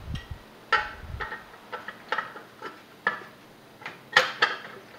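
Irregular metallic clinks and clicks of a ratchet and socket wrench and nuts being fitted onto stud extenders, about ten in all, the loudest a little past four seconds in.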